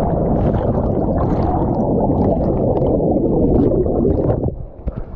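Muffled rushing and gurgling of air bubbles around a camera plunged underwater by a jump from a cliff into deep water. It dies down about four and a half seconds in.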